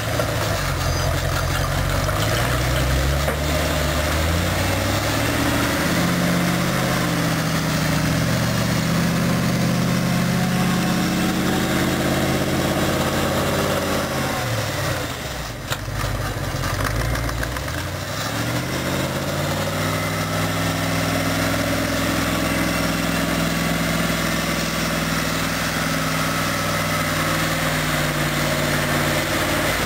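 Chrysler 318 V8 engine of a homemade articulated 4x4 tractor running under load, its pitch rising and falling several times as it speeds up and slows, with a brief low point about halfway through.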